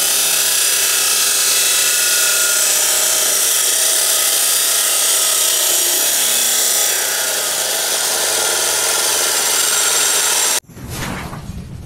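Yamasu YMS-355-1 2400 W abrasive cut-off saw grinding through a square steel tube: a steady, high-pitched hiss and whine from the 355 mm cutting disc biting the metal. It cuts off abruptly near the end.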